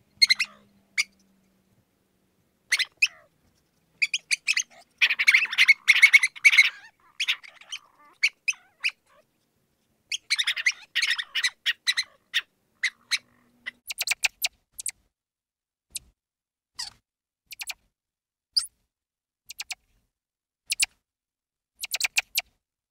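Mouse squeaking: short, high-pitched squeaks, with two dense flurries of rapid squeaks about five and about ten seconds in, and scattered single squeaks between.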